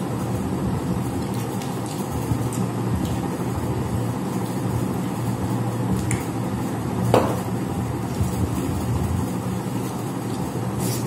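A steady low background rumble and hum, with a few faint clinks and taps from metal plates and bowls as food is eaten by hand; the clearest clink comes about seven seconds in.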